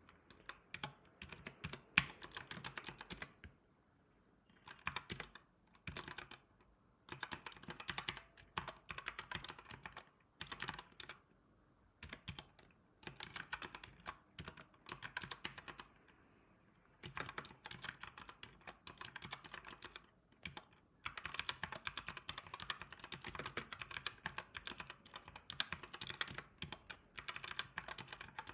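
Typing on a computer keyboard: runs of rapid key clicks broken by brief pauses.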